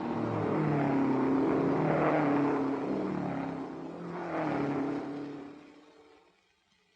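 Racing car engines at speed passing by: a long pass that swells and fades, then a second, shorter one about four seconds in, dying away to near silence near the end.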